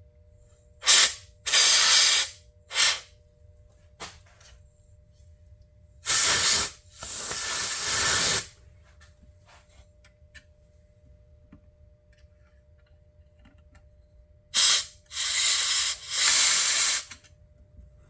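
Compressed air blowing dust out from behind a chronometer's display in three rounds, each a short blast then a longer hissing one: the dirt trapped behind the display is being cleared.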